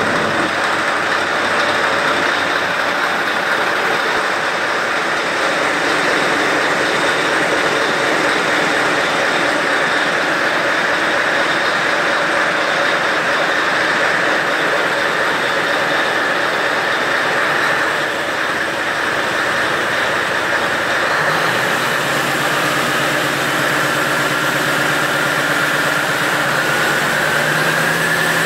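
Scania 16.4-litre XPI V8 diesel running steadily, a loud, even engine note with a high whine over it. About 21 seconds in the low engine note changes, and over the last few seconds the whine climbs in pitch.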